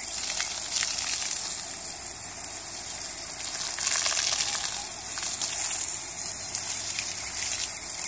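Garden hose spraying a jet of water in a steady hiss, the stream splashing onto the alpacas' wet fleece and the grass.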